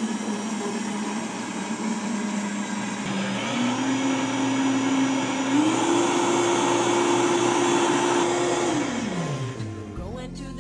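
Blender motor running steadily, stepped up twice to higher speeds, then switched off near the end so its pitch sinks as it winds down.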